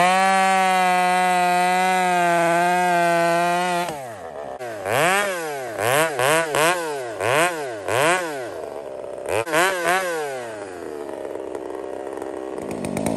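Husqvarna 372XP two-stroke chainsaw held at a steady full-throttle pitch in a cut for about four seconds, then blipped up and down about ten times. It then drops to a quieter, lower running speed.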